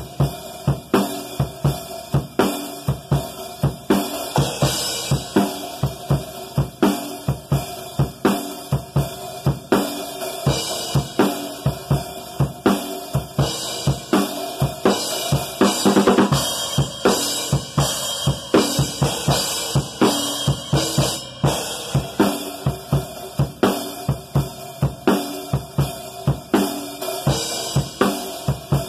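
Acoustic drum kit played in a steady groove: kick and snare hits under hi-hat and cymbals, with a fast run of strokes about sixteen seconds in.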